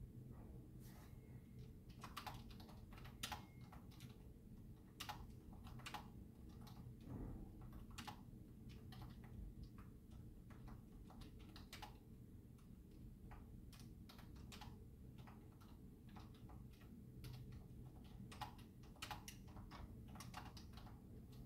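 Typing on a computer keyboard: irregular runs of quiet key clicks with short pauses between them.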